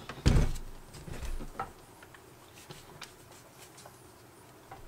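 A thump and a second or so of handling and liquid sloshing as a Ryobi One+ chemical sprayer's plastic tank is shaken to mix concentrate into the water, then a click and a few faint ticks.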